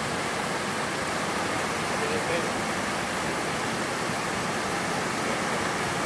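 Steady rushing of water from a small waterfall cascading over stepped rock ledges into a pool.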